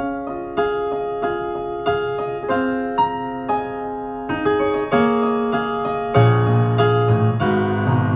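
Piano music: a slow run of struck notes and chords, each one ringing on, with deeper bass notes coming in about six seconds in.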